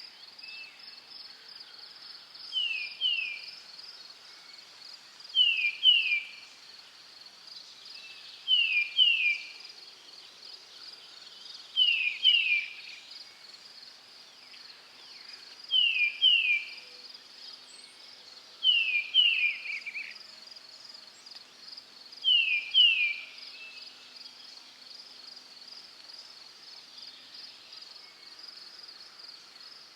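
Crickets trilling steadily in a high, fast pulse. Over them a louder two-note call repeats seven times, about every three seconds, each note sliding down, and falls silent for the last few seconds.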